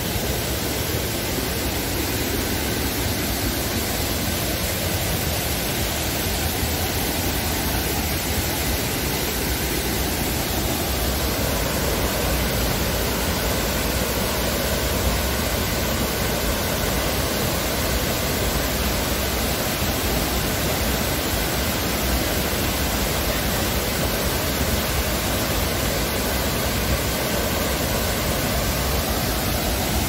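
Steady, unbroken rush of the Benang Kelambu waterfall, water cascading and flowing in a constant even hiss.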